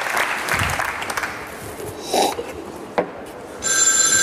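Studio audience applause dies away over the first second or so, followed by a brief click. Near the end a telephone starts ringing with a steady electronic tone.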